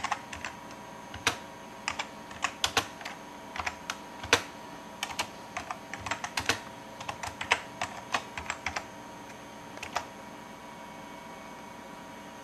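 Typing on a computer keyboard: a run of irregular key clicks, ending with a last keystroke about ten seconds in.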